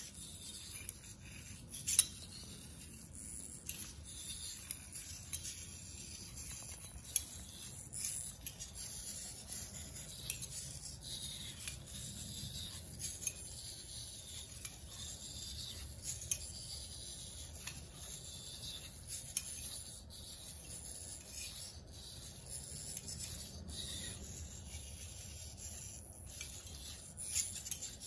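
The hobby servo motors of an eight-servo biped robot whirring and buzzing as it walks, with its foot plates clicking and scuffing on a hard stone floor at irregular intervals.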